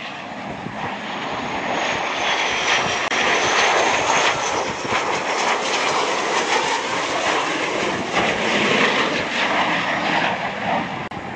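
Blue Angels F/A-18 Hornet's twin jet engines running loud as the jet flies past low with its landing gear down: a steady dense roar of jet noise, with a faint high whine gliding up and down about two to four seconds in, easing slightly near the end.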